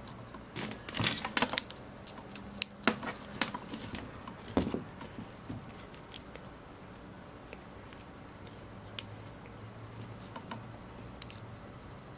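Clicks and rattles of small plastic electronics and cables being handled, a dense run of sharp clicks in the first five seconds, then a few faint scattered ticks.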